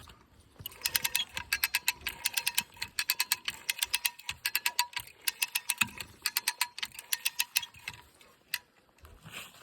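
Hand ratchet tensioner being cranked to tighten a high-tensile wire line, its pawl clicking rapidly in runs of quick clicks. The cranking stops a little before the end, with one lone click after.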